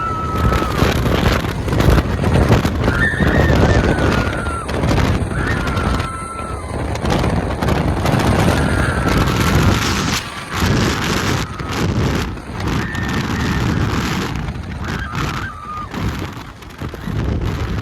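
Wind rushing over the microphone aboard a fast-moving Test Track ride vehicle, with several short, high whistling tones that slide up and down.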